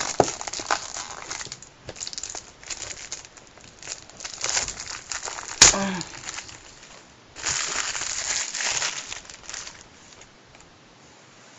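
Plastic wrapping on a Blu-ray box set being picked at, crinkled and torn while being pulled open with difficulty, with a sharp snap about halfway through and a longer, louder spell of crinkling soon after.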